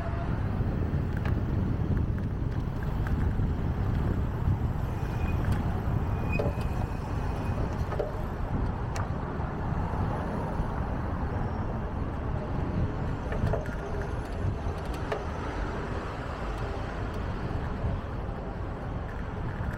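Steady rumble of city road traffic heard from a moving bicycle on a busy street, with a few faint clicks and two brief high tones about six seconds in.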